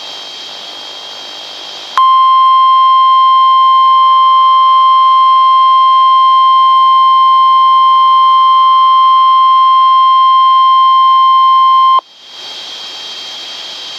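NOAA Weather Radio warning alarm tone: a single loud, steady 1050 Hz tone that starts abruptly about two seconds in, holds for about ten seconds and cuts off sharply. Steady radio hiss with a faint high whine comes before and after it. The tone is the signal that an emergency warning broadcast follows, here a severe thunderstorm warning.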